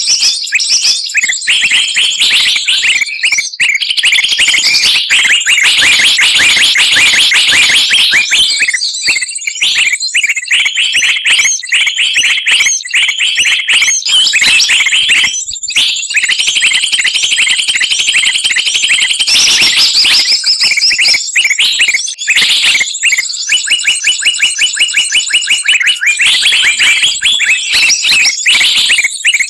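A dense mix of many small songbirds' calls and songs chirping and trilling over one another with hardly a break: a recorded bird-lure track built to draw birds in.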